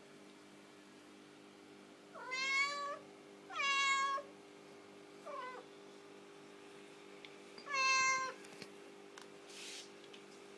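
A domestic cat meowing four times: three loud meows and a short, fainter one between the second and the last.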